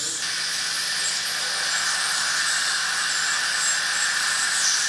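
Cavitron ultrasonic dental scaler running with its water spray, a steady high-pitched hiss and whine. It is vibrating a temporary resin-bonded bridge to loosen it for removal.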